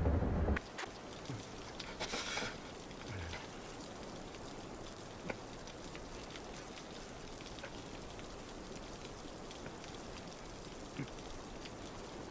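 Steady, faint hiss of light rain with scattered small ticks. A brief louder rush of hiss comes about two seconds in.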